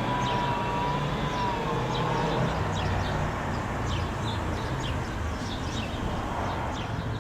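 Town street ambience: a steady rumble of road traffic, with a faint wavering tone over the first couple of seconds and scattered short high chirps through the middle.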